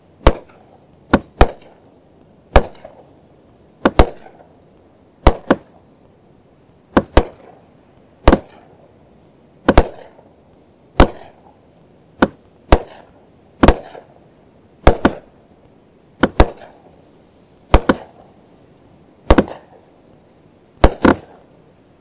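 Racoon 'Raging Willow' 200-gram fireworks cake firing shot after shot: a sharp bang about every second and a half, some in quick pairs, each with a short echoing tail.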